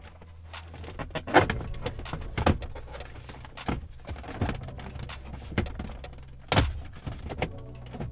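Hard plastic knocks and clicks as a truck's instrument cluster is handled and pushed into its dashboard opening, with the sharpest knocks about a second and a half in and again near the end.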